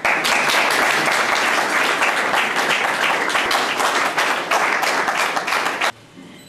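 Audience applauding, a dense clatter of many hands clapping that starts abruptly and cuts off suddenly near the end.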